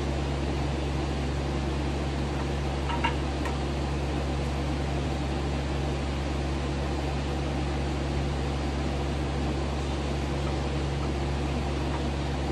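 Steady mechanical hum with a low drone and an even hiss, like a running fan or air conditioner, with one faint click about three seconds in.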